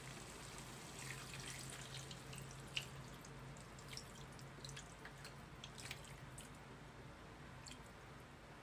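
Water poured from a glass bowl into a frying pan of pork belly adobo, splashing and trickling for several seconds with one sharper splash, then tapering off near the end. A faint steady low hum runs underneath.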